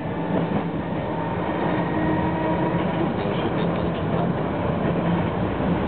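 Tram running along its track, heard from on board: a steady running noise of wheels on rails with a low, steady hum.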